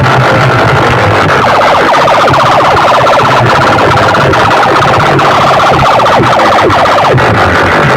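Siren-like electronic effect blasted through a large DJ sound system, its pitch sweeping down over and over many times a second, over a pulsing bass. Very loud throughout.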